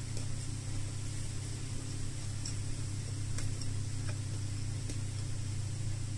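Steady low hum with a constant hiss, and a few faint clicks of eating.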